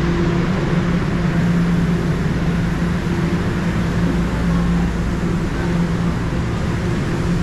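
Toronto subway train running at a steady speed: a continuous loud rumble with a steady electric motor hum.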